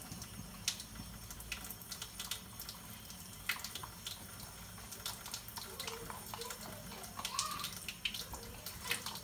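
Snap stone (fast-setting dental stone) being mixed with water in a mixing bowl: irregular wet scraping and clicking, with short squeaky scrapes in the second half.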